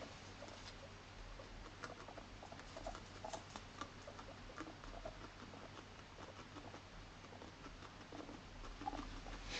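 Abyssinian guinea pig making quiet small sounds with her head down: soft, irregular clicks mixed with short, low chuts.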